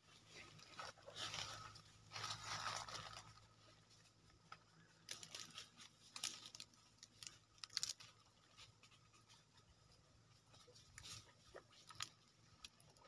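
Near silence: faint scattered clicks and short rustles over a low steady hum.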